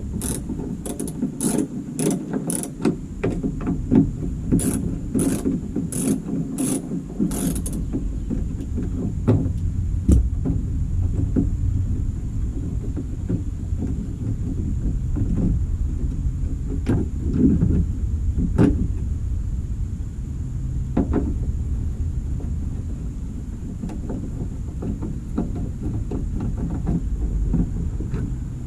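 Ratchet wrench clicking in two quick runs, about two clicks a second, while a fastener on the minivan's tail light assembly is worked, followed by a few scattered clicks and knocks over a steady low rumble.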